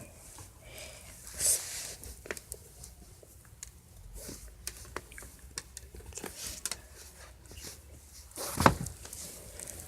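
Handling and movement noises: scattered clicks, knocks and rustles, with a louder burst of rustling about a second and a half in and a loud thump near the end.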